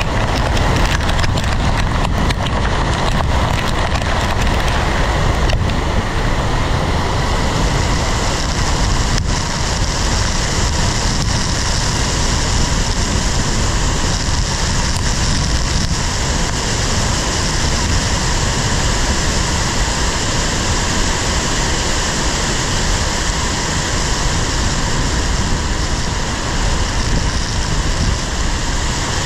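Severe-thunderstorm wind of over 65 mph driving rain and hail against a car, heard from inside as a loud, dense, unbroken rush. Sharp scattered hits come through in the first several seconds, then it settles into a smoother, hissier downpour.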